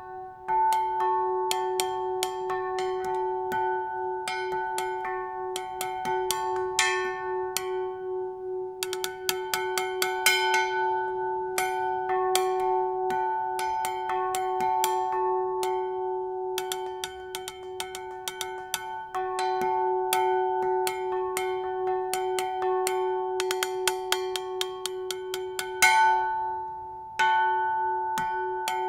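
Small bronze church bell rung by pulling the rope tied to its clapper, improvised: strikes come in uneven runs with quick flurries, over a continuous ringing hum. There is a short lull near the end before the strikes resume.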